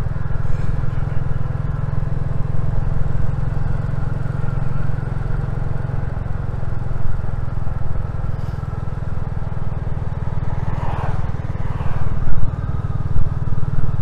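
Royal Enfield Classic 350's single-cylinder engine running steadily while the motorcycle is ridden, a low, even exhaust note.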